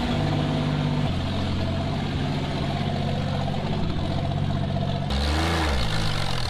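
1983 AMC Eagle SX/4's engine running just after being started. Its steady note drops in pitch about a second in, and a short rev rises and falls near the end.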